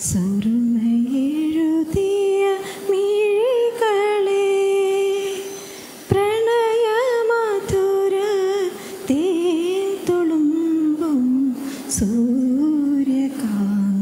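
A woman singing a slow song solo into a microphone, holding long notes with a slight waver and pausing briefly between phrases.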